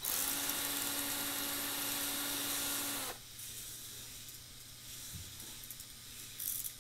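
A K'NEX roller coaster's small electric motor whirs steadily with a hiss of gear noise, then shuts off about three seconds in, its pitch sagging as it stops. A short clatter follows near the end.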